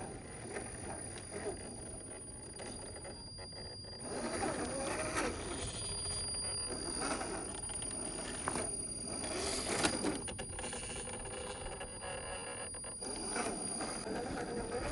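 A 1/10-scale RC crawler's electric motor and gears whining in several throttle bursts, the pitch rising and falling with each one.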